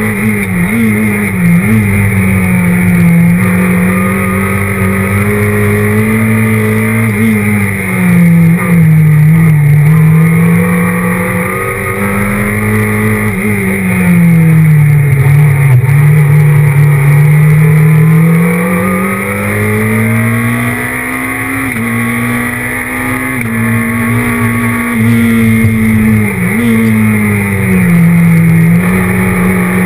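Renault Clio R3 rally car's four-cylinder engine heard from inside the cockpit under load. Its note rises and falls over several seconds at a time, with brief sharp dips about a second in and again near the end.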